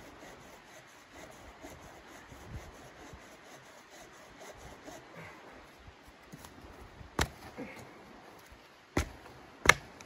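Wood being chopped or split: three sharp knocks in the last three seconds, the last the loudest, after faint scraping and rustling.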